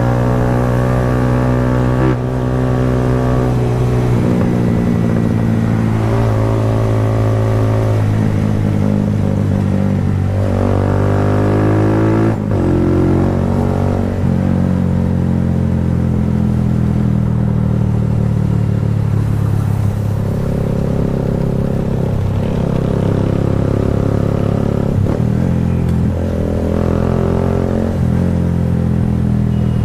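Kawasaki Rouser 180's single-cylinder four-stroke engine running through an Akrapovic slip-on muffler. The exhaust note rises and drops several times as it is revved, with sudden breaks in pitch at about two and twelve seconds.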